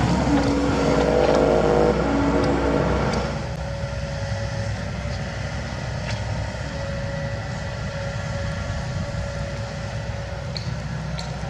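Kobelco SK75 excavator's diesel engine and hydraulics working under load. About three seconds in it drops to a lower, steady running, with a few light clicks near the end.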